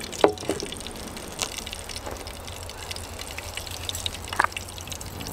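Eggs frying in a pan: a steady sizzle with scattered sharp pops and clicks, the loudest just after the start and about four seconds in.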